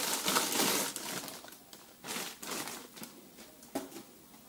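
Packaging rustling and crinkling as the kit's contents are unpacked. The rustling is loudest in the first second and a half, comes back in shorter bursts, and a sharp click sounds near the end.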